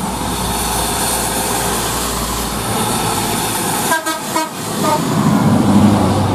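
Heavy rain hissing with wet-road traffic, then about four seconds in a few quick horn toots as a bus passes close. A low engine rumble swells as an Adiputro Jetbus 2 coach on a Mercedes-Benz OH1521 chassis goes by.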